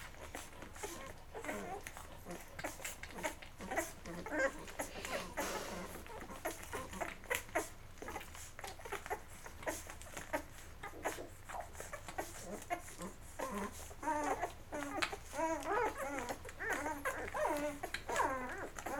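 Newborn Labrador puppies nursing: many small wet suckling clicks and smacks with little grunts. From about fourteen seconds in, a run of high, wavering dog whimpers.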